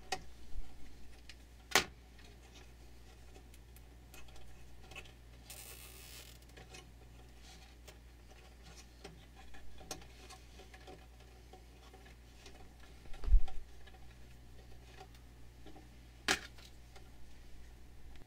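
Faint, irregular clicks, taps and rustles of wires and small metal parts being handled in an amplifier chassis during hand wiring, with a sharper click near the start and near the end and a dull knock in between. A steady low hum runs underneath.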